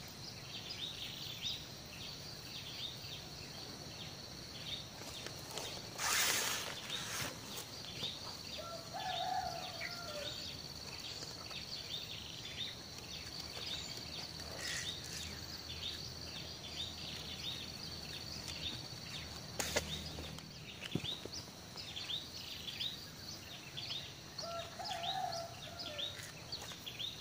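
Outdoor birdsong: many short chirps over a steady high drone. A brief rustling noise comes about six seconds in.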